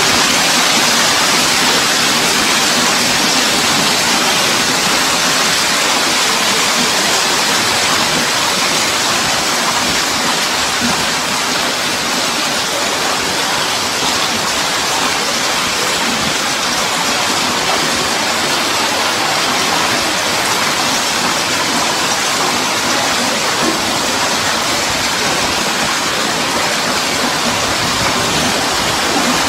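Heavy hail pelting down on paving and terrace, a loud, steady hiss of countless hailstones striking.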